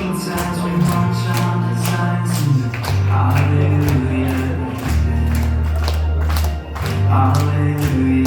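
Contemporary worship song playing, with singing over a steady drum beat and deep sustained bass notes.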